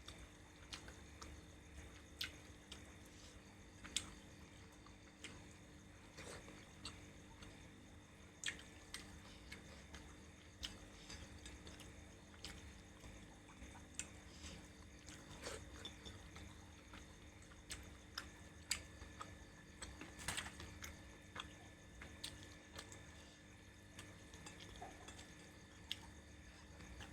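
Quiet eating sounds: scattered soft clicks and small wet mouth sounds of someone chewing a curry meal, over a faint steady hum.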